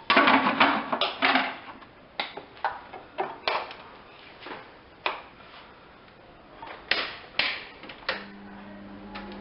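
Kitchen clatter, a series of sharp knocks and clicks of dishes and utensils being handled while vegetables are set up for steaming. About eight seconds in, an electric kitchen appliance switches on with a steady hum.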